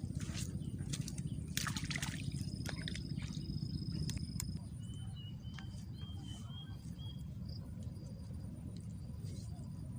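Outdoor waterside ambience: a steady low rumble under high, steady insect trills that come and go, with a few sharp clicks in the first two seconds and a short run of chirps around the middle.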